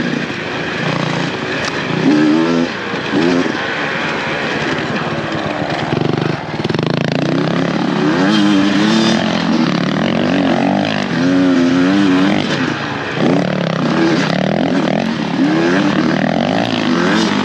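Dirt bike engine running hard off-road, its pitch rising and falling over and over as the throttle is opened and closed, over a constant rushing noise.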